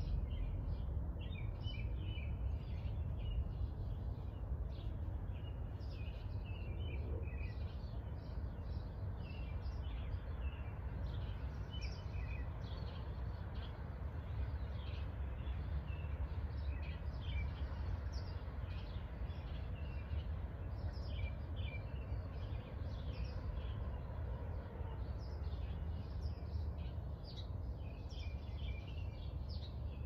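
Small birds chirping in many short, quick calls throughout, over a steady low rumble of suburban background noise.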